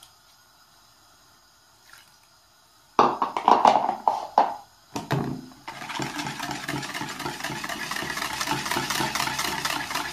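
A wire whisk beating a thick egg-yolk and yogurt mixture in a plastic bowl: a steady, rapid rattle of the wires against the bowl that starts about six seconds in. Before that come a few loud clatters of plastic kitchenware being handled, after a quiet start.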